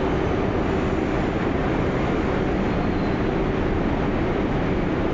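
Subway station ambience dominated by a New York City subway train's steady rumble and hiss, with a low steady hum running under it.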